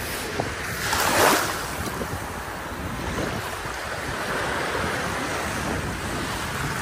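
Baltic Sea surf washing onto a beach, with one wave breaking louder about a second in, and wind on the microphone.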